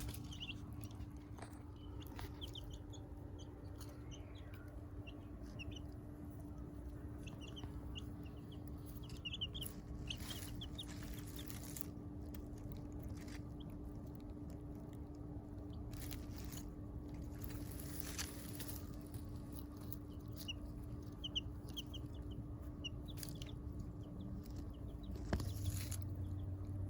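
Young chickens peeping in clusters of short, high cheeps over a steady low hum, with a few brief rustling noises.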